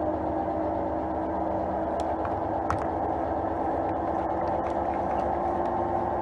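Hand-held immersion blender's electric motor running steadily with its blade head submerged, churning milk cream into butter. A couple of faint ticks about two seconds in.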